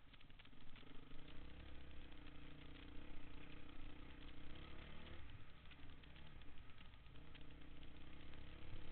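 Honda dirt bike engine running at a steady, moderate pace while the bike is ridden over a dirt trail, with rattling and clatter over it. Just past halfway the engine note fades for about two seconds, then comes back.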